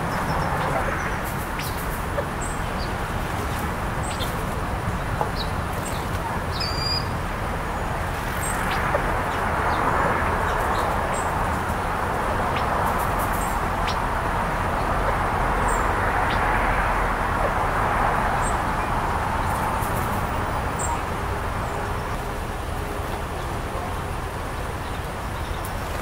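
Steady outdoor rushing noise that swells and fades twice, with scattered brief, high songbird chirps over it.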